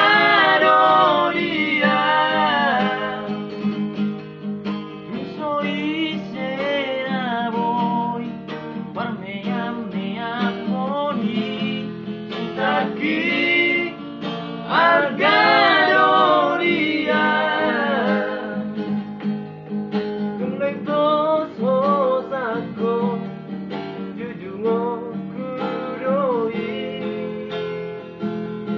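Acoustic guitar strummed as accompaniment while a man sings a melodic song over it.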